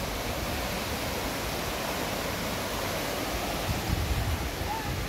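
Jordan River rushing over shallow rapids: a steady hiss of white water. About four seconds in there is a brief low rumble.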